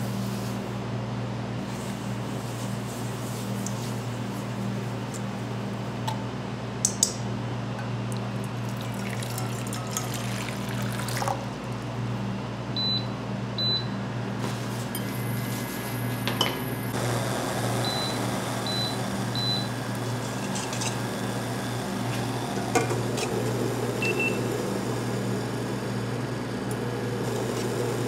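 Kitchen work with liquid and glassware handled over a steady low hum, and short electronic appliance beeps: two about halfway through, three more a few seconds later, and single lower beeps near the end.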